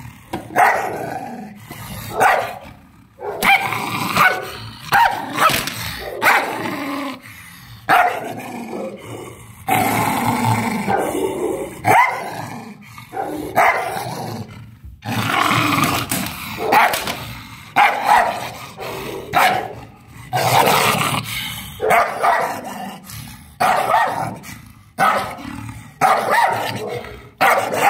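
A dog barking and snarling aggressively in a long run of barks about one a second, with growling between them, teeth bared in a threat display.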